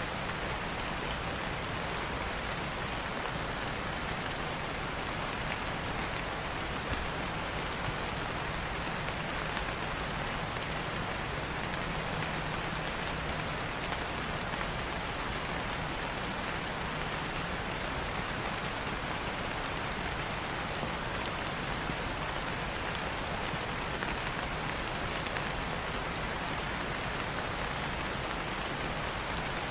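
Steady rain falling on leaves, an even hiss with a few louder drops standing out now and then.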